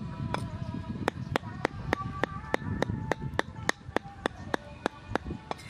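Cleaver mincing raw meat on a round wooden chopping board: a steady run of sharp chops, about three to four a second.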